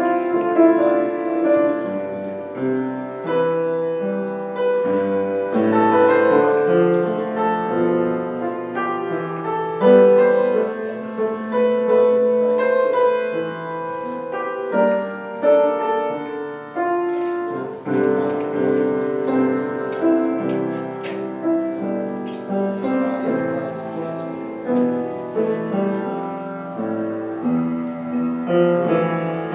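Solo piano playing an instrumental piece in slow, sustained chords.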